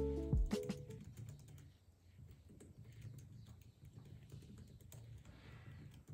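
Light typing on a laptop keyboard: soft, quick key clicks, faint throughout. The last notes of background music die away in the first second.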